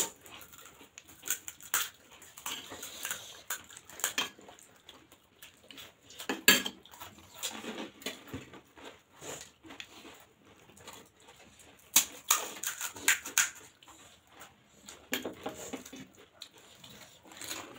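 Pani puri being eaten: crisp hollow puri shells cracked open by hand and crunched, with wet chewing and irregular clinks of steel spoons on steel bowls. Sharp cracks come at uneven intervals, the loudest about six and a half and twelve seconds in.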